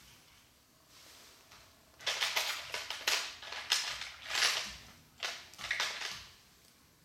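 Small plastic construction-kit parts of a Goldberg-style roller coaster clattering and rattling in a quick run of sharp bursts. It starts about two seconds in and lasts about four seconds.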